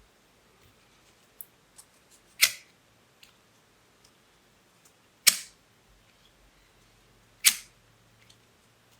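Three sharp clicks a few seconds apart, with a few faint small ticks between them: a lighter being struck to seal folded grosgrain ribbon.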